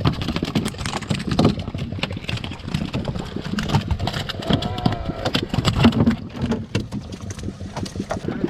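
Boat motor running, with indistinct voices over it.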